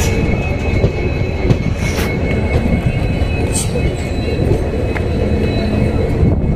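Railway train noise: a continuous low rumble with thin, steady high tones over it and a few brief clicks.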